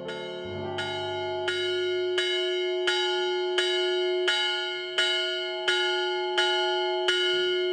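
A bell struck over and over at a steady pace, about three strokes every two seconds, its tone ringing on between strokes.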